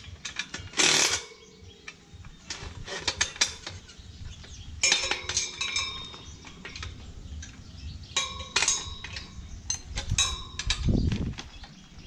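Scattered metallic clinks, taps and short ringing strikes of hand tools and parts on the steel frame and spiked roller of a tractor implement being assembled, with a brief scraping rush about a second in and a dull thud near the end.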